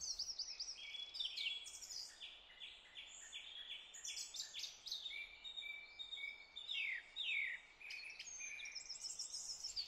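Quiet songbird chorus: several birds singing, with runs of short repeated chirps and a few quick downward-sliding notes about seven seconds in, over a faint steady hiss.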